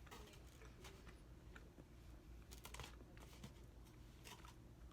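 Near silence: room tone with a steady low hum and a few faint, brief clicks.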